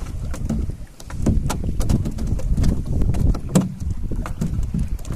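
Gusty wind rumbling on the microphone aboard a small boat at sea, with scattered small clicks and a louder knock about three and a half seconds in.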